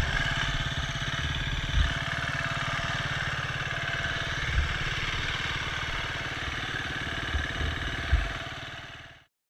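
KTM enduro motorcycle engine idling steadily while the bike is down on the slope, with a few dull thumps; the sound stops near the end.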